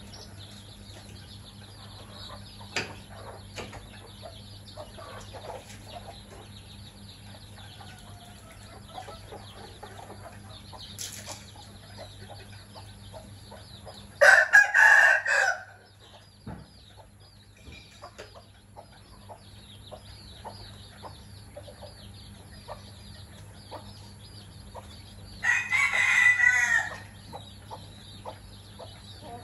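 A rooster crows twice, each crow about a second and a half long, once midway and once near the end. Between the crows there is faint, continual high peeping of chicks and soft clucking.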